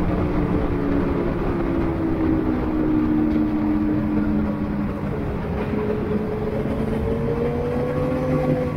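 Vehicle engine noise on a race circuit over a steady bed of road and wind noise. One engine note slowly falls over the first few seconds, and a higher note rises from about six seconds in until near the end.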